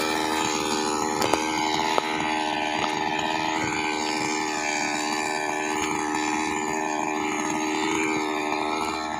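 Two-stroke chainsaw idling steadily while carried, with a few sharp clicks in the first two seconds.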